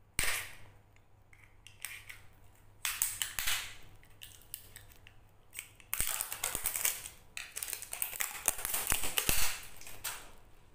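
Plastic crinkling and crackling as the clear wrap on a new gel motorcycle battery is pried and peeled off. It comes in irregular rustling bursts with sharp clicks, starting with a click right at the start and getting louder and busier in the second half.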